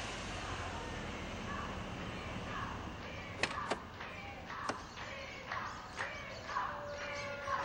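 A car door clicking open about three and a half seconds in, followed by several more sharp clicks spaced about half a second to a second apart, over a steady low street rumble.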